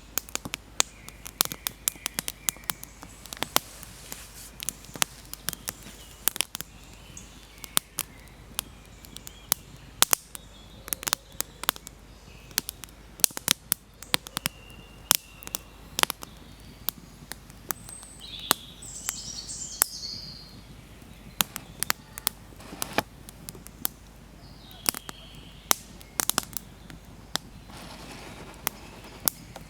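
Wood fire in a Dakota fire hole crackling, with frequent irregular sharp pops. Birds chirp now and then in the background, most clearly about two thirds of the way through.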